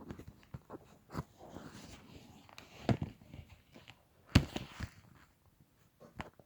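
Plastic LEGO bricks being handled and pressed together: a run of small clicks and rustling, with two louder sharp knocks, about three and four and a half seconds in.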